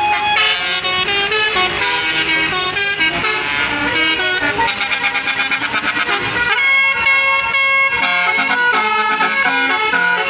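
Bus telolet basuri musical air horn playing a fast melody of short, changing notes.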